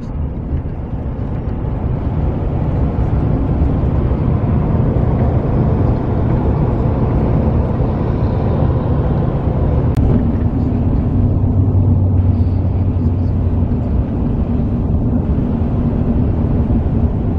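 Steady highway driving noise heard from inside a moving car's cabin: tyre and road rumble with a low engine hum that grows a little firmer about ten seconds in. One brief click is heard at that point.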